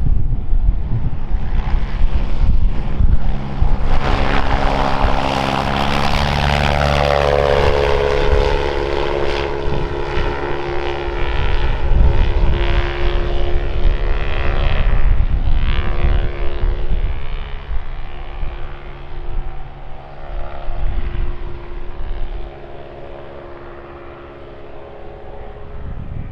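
Breezy pusher light aircraft's propeller engine flying past: the engine note swells, drops in pitch as the plane goes by, then fades as it climbs away. Wind buffets the microphone throughout.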